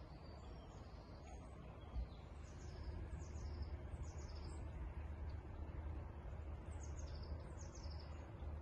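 Small birds chirping, a string of short high notes that drop in pitch, over a steady low rumble. There is a single brief low bump about two seconds in.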